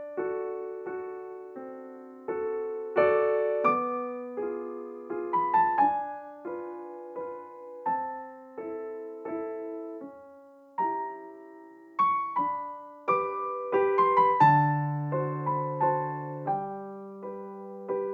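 Gentle background piano music: single struck notes and chords, each fading after it is played, at an unhurried pace.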